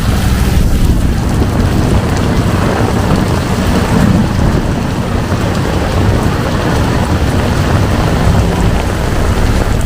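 Heavy tropical rain pouring steadily, with wind noise on the microphone and the low hum of vehicle engines in the downpour.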